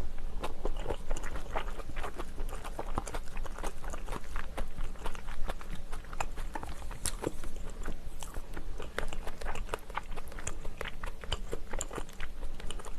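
A person chewing food close to the microphone: a steady run of small, irregular wet mouth clicks and smacks.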